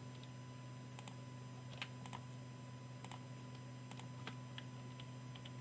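Faint, sparse clicks of a computer mouse and keyboard, about a dozen at uneven intervals, over a steady low hum.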